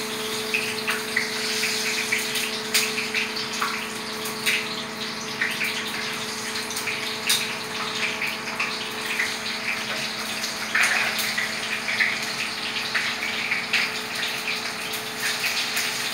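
Food sizzling in hot oil in a pan on a gas burner: a steady hiss with scattered crackles. A steady low hum runs underneath.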